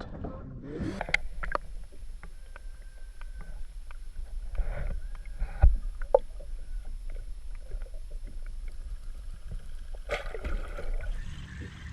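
Boat sounds on open water: a steady low rumble of wind and water with scattered small clicks and knocks from gear aboard, and one louder knock a little before the middle.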